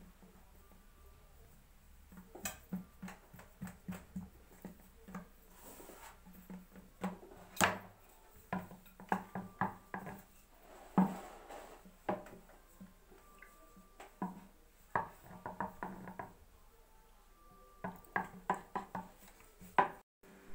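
Wooden rolling pin rolling out pastry dough on a wooden tabletop: runs of quick knocks and clacks as the pin is pushed back and forth and set down, with short pauses between.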